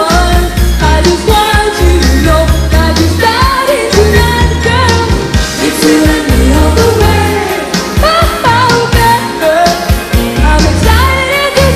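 Upbeat pop song with young male voices singing the lead over a band, with a stepping bass line and steady drum beat.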